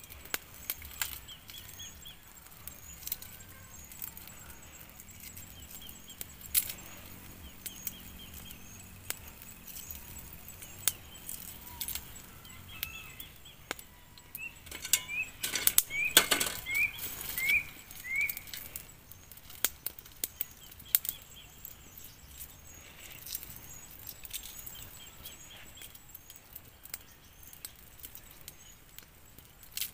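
Eggshells being cracked and peeled off by hand over a steel bowl: scattered small clicks and crackles, with occasional clinks against the bowl, busiest in the middle. Birds chirp in the background, with a quick run of about six rising chirps midway.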